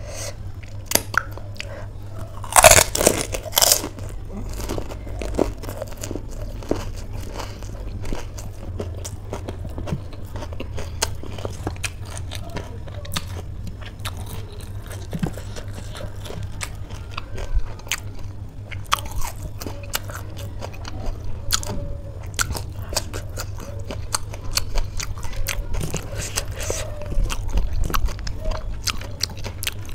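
Eating panipuri: a loud crisp crunch about three seconds in as a filled puri shell is bitten, then steady chewing with scattered small crunches and clicks, growing busier again near the end.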